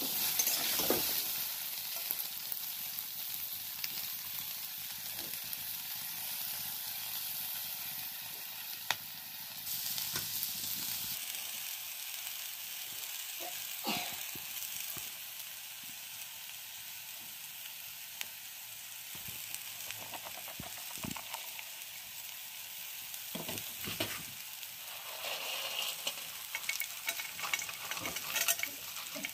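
Cauliflower and potato pieces sizzling as they fry in a metal wok, with a steady hiss and a flat metal spatula scraping and knocking against the pan now and then as the pieces are stirred.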